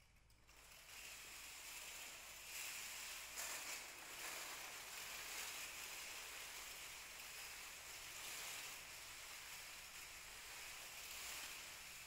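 Hundreds of small metal jingle cones on a performer's costume shimmering and rattling as the wearer moves and turns. It is a faint, even jingling rustle that starts about half a second in and swells and ebbs slightly as the movement goes on.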